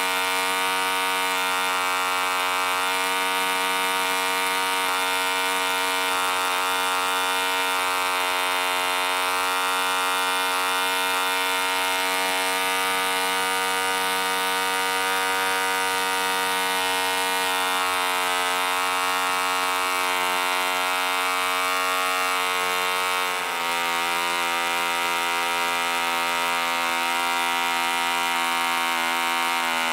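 1945 Rocket Victor .45 spark-ignition two-stroke model engine running at high speed on a 13x6 wooden propeller, a steady buzz. About two-thirds of the way through, its speed dips and settles a little lower, and it drops slightly again near the end.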